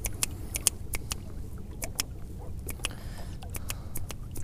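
Spinning fishing reel clicking irregularly as it is handled after the cast, with about fifteen sharp clicks over a steady low rumble.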